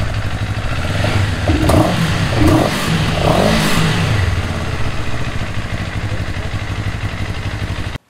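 CF Moto CL-X 700's parallel-twin engine running through its very loud stock exhaust: idling, blipped up three times in quick succession between about one and a half and four seconds in, then dropping back to a steady idle.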